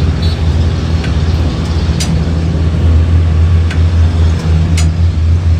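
Steady low hum of an engine running nearby, with a few sharp clicks over it.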